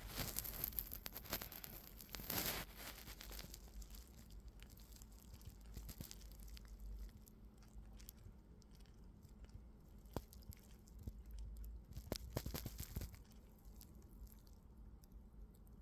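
Cockatiel's beak nibbling and clicking: faint scattered clicks and small crunches, busier about two seconds in and again around twelve seconds.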